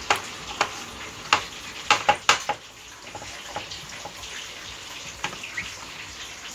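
Sharp clicks and taps of sliced vegetables and utensils against a salad dish as cucumber is layered in. Several come close together about two seconds in, then fainter ticks follow, over a steady hiss.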